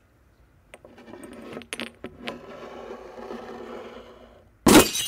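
Salt being passed and spilled: a few light clicks of the shaker, then a few seconds of fine grains scattering and rattling onto a hard surface. Near the end comes a sudden loud crash-like burst.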